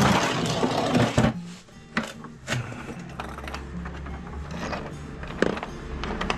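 A plastic power-tool case is opened with loud clicks and clatter, followed by scattered knocks and rattling as metal driver bits and tools are handled inside it. Background music plays underneath.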